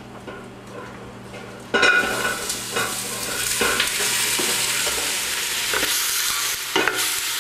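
Raw skin-on chicken pieces dropped into hot oil in a stainless steel stockpot, sizzling loudly from about two seconds in and continuing steadily as they begin to brown. A few short knocks come as the pieces are stirred with a wooden spoon.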